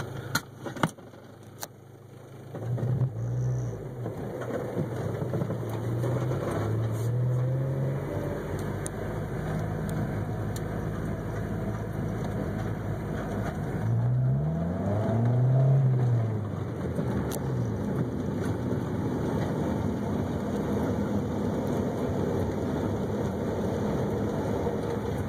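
Honda CR-X Si's D16A6 four-cylinder engine pulling the car away and accelerating through the gears, its note rising and then dropping at each shift over steady road noise. A few sharp clicks in the first couple of seconds.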